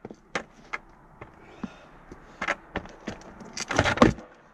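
Skateboard clattering on hard ground: scattered sharp clacks, then a heavier slam of the board about four seconds in, loud.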